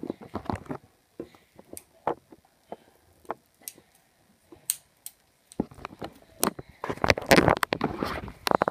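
Handling noise as string is tied around a wooden bed post: scattered small clicks and rustles with quiet gaps, then denser rustling over the last three seconds.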